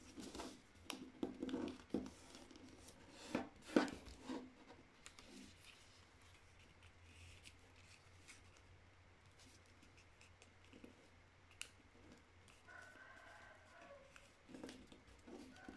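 A sheet of printer paper being folded and creased by hand: crisp crackles and rustles as it is pressed and the crease is run flat with the fingers, busiest in the first few seconds, then softer rubbing.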